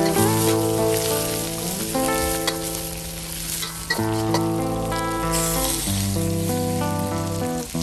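Whole shrimp with garlic and scallion sizzling in hot oil in a wok, over background music. The sizzle grows louder a little past five seconds, as cooking wine goes into the hot wok.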